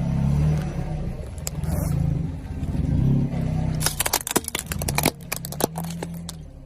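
A car engine running at low speed. About four seconds in comes a rapid string of sharp pops and cracks lasting under two seconds, as things under the tyres burst.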